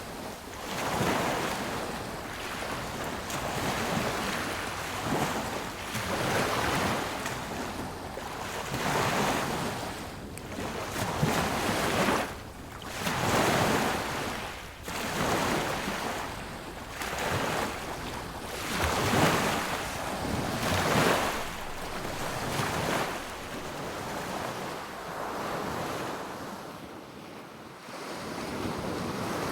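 Sea waves breaking and washing up a beach, the surf surging about every two seconds and easing toward the end.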